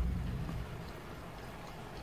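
Low, steady rumble of background noise inside a parked car, with no distinct events.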